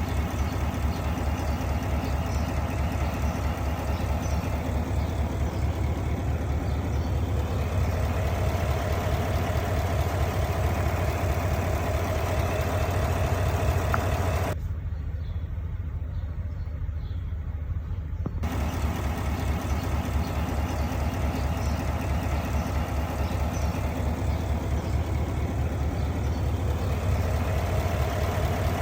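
Engine idling with a steady, low, rhythmic pulse, running with a misfire that sets the check engine light. For about four seconds around the middle the sound goes muffled, with the higher range cut away.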